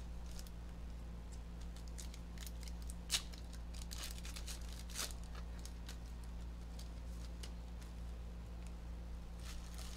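Trading cards handled on a table: a scatter of light clicks and snaps of card stock, one sharper about three seconds in, over a steady low electrical hum.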